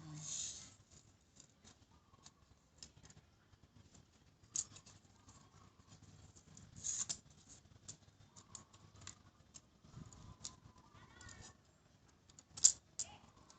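Small plastic toy parts being handled and fitted together: scattered light clicks and a few short rustles, with one sharper click near the end.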